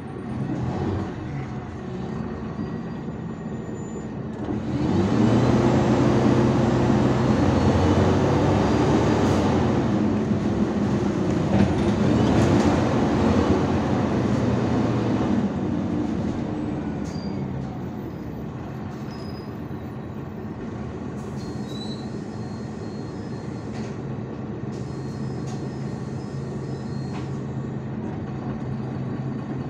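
IVECO Urbanway 12M city bus heard from inside the cabin: the engine pulls loudly under acceleration for about ten seconds, its pitch rising and falling through the gears, then drops back to a quieter, steady idle as the bus stands at a red light.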